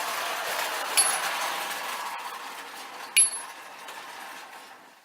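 Marx wind-up Commodore Vanderbilt tinplate toy locomotive running on tinplate track with a steady tinny clatter, plus two sharp metallic clinks. The clatter fades near the end as the spring motor runs down on the uphill grade.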